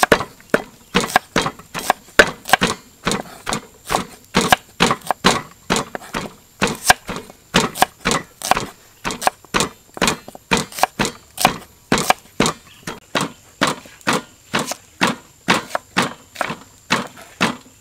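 Kitchen knife chopping shallots on a thick wooden chopping block: a steady run of sharp knocks, about two or three a second.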